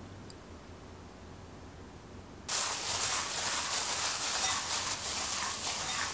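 A hand in a disposable plastic glove mixing raw chicken pieces with their seasoning in a glass bowl: a steady, crackly squish and rustle of glove and wet meat. It starts suddenly about two and a half seconds in, after a quiet stretch with only a low hum.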